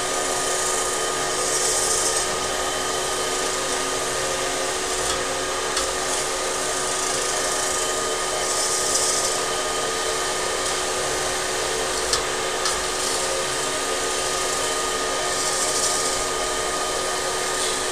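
Metal-spinning machine forming an aluminium pot, its rollers pressing the spinning blank against the mandrel: steady machine noise with a constant hum and a higher whine. A brighter hiss swells roughly every seven seconds, with a few faint ticks.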